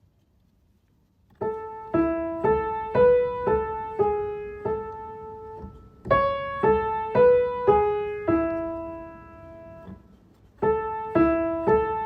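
Piano playing a simple single-note melody in A major, one note at a time at about two notes a second. It runs in phrases, each ending on a held note: one phrase, a short pause, a second phrase, then the opening phrase starting again near the end.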